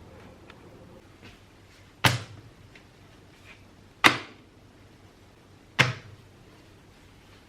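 Three sharp knocks about two seconds apart, each ringing briefly. A faint steady hum stops about a second in.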